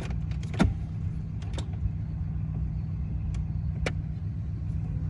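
Car engine idling with a steady low hum, with a few sharp clicks over it.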